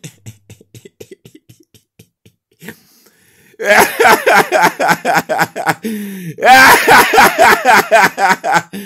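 A man laughing: faint short chuckles at first, then a few seconds in loud, rapid laughter, broken partway through by a drawn-out falling note before it picks up again.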